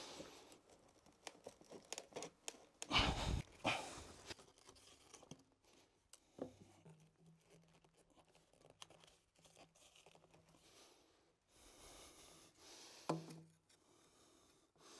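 Faint handling noises of PVC drain pipe and fittings being worked by hand: scattered clicks, scrapes and rustles, with louder bursts about three seconds in and again near the end.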